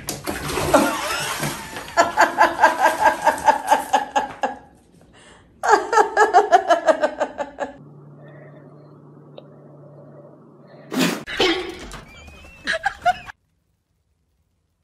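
A person laughing hard in rapid bursts, in two spells. Then a steady low hum with a sharp knock about eleven seconds in, before the sound cuts out.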